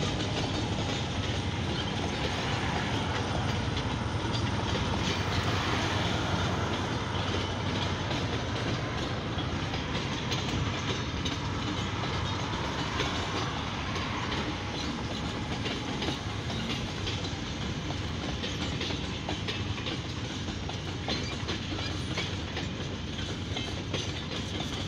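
Freight train wagons rolling past: a steady rumble of steel wheels on the rails, with a quick clickety-clack as the wheels cross the rail joints.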